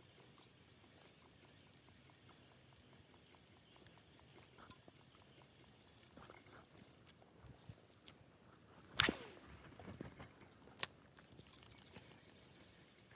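Insects chirring in a steady high drone that fades for several seconds in the middle, with a few sharp clicks about eight to eleven seconds in, the loudest about nine seconds in.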